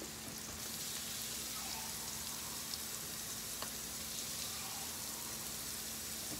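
Rice frying in oil in a stainless steel sauté pan, a steady sizzle as it browns.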